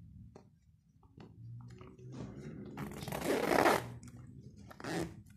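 Zipper on a black pouch being pulled open: one long rasp about three seconds in and a shorter one near the end, with light handling clicks around them.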